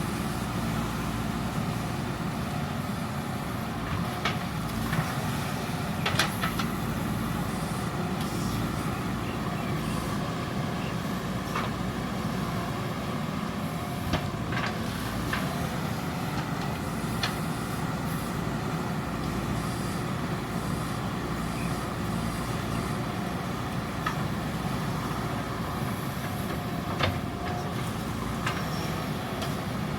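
JCB 3DX backhoe loader's diesel engine running steadily under work, with a few sharp metallic knocks from the digging gear now and then.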